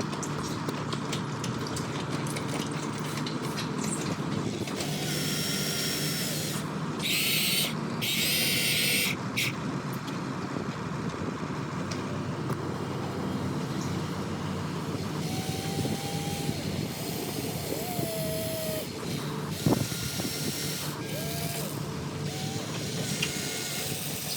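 Radio-controlled model excavator working: a steady electric motor and hydraulic pump whine, with two louder bursts of hiss about five and seven seconds in, and a few brief whining pitch glides later on.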